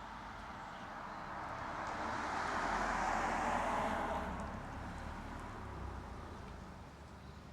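A vehicle passing by: a steady rush of engine and tyre noise that swells to its loudest about three seconds in, then fades away.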